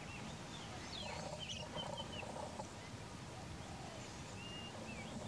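Birds calling: short whistled chirps and up-and-down glides, with a lower, rapidly broken call between about one and two seconds in.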